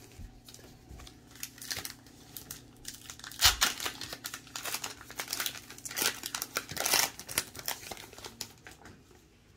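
Baseball trading cards being handled and flipped through, with crinkly rustling and short scrapes. It is busiest about a third of the way in and again around two-thirds through.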